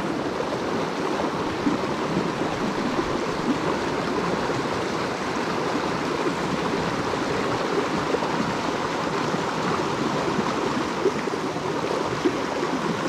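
Small mountain creek rushing and splashing over rocks, a steady flow of water noise.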